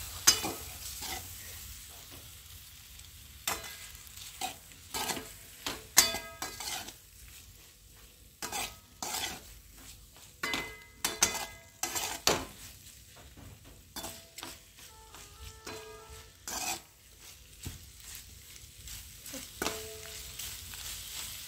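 A spatula scraping and knocking against a metal kadhai while macaroni pasta is stirred and fried. It makes irregular clatters, some with a short metallic ring, over a faint sizzle of hot oil.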